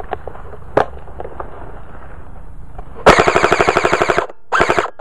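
Electric airsoft M16-style carbine firing on full auto: one rapid burst of about a second, then a short second burst near the end. Before it, brush rustles and scrapes against the gun.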